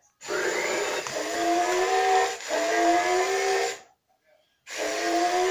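JJRC R1 Defenders toy robot playing an electronic sound effect through its built-in speaker: a hissing whoosh with slowly rising tones, lasting about three and a half seconds with a brief break midway, then a second shorter burst about a second later.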